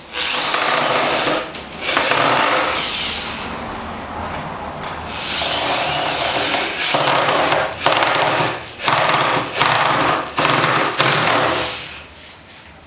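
Cordless drill driving screws into wood: several long runs in the first half, then a string of short runs about a second apart as the screws are run home.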